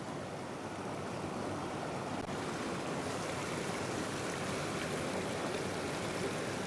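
Steady rush of a small mountain stream spilling over a log step in shallow white-water cascades.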